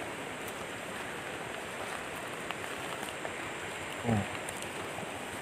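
Steady rushing of river water, with faint splashes from cucumbers being swished and rinsed in the shallows. A short, low vocal sound that falls in pitch comes about four seconds in.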